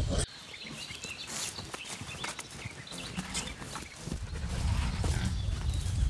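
Farm animals moving about in a pen: scattered rustles and light knocks.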